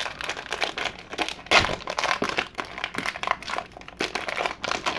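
Trading card pack wrapper crinkling and rustling in the hands as the pack is opened: a dense, irregular run of crackles.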